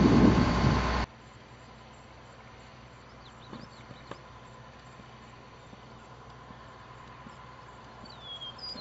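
Crane truck's engine running steadily with a hum, cutting off suddenly about a second in. Then a quiet outdoor background with a few faint clicks and a bird chirping briefly near the end.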